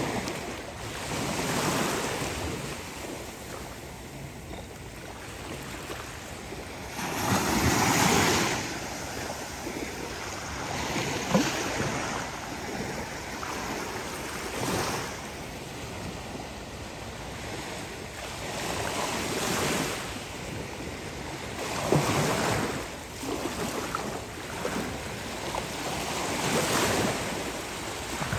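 Small ocean waves breaking and washing up the beach, the surf swelling and falling back every few seconds.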